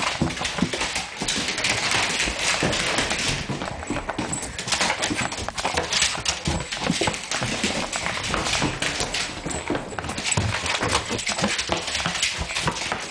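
A dog scrambling about on a hard floor, its claws making a fast, uneven clatter of clicks and scrapes, while a broom knocks and scrapes along the floor near it.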